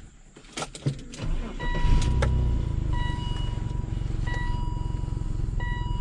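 BMW E39 530i's M54 straight-six engine starting about a second in and settling into a steady idle, with a repeating electronic beep over it. It is running on a known-good mass airflow sensor, in place of the faulty one that kept it from starting and idling.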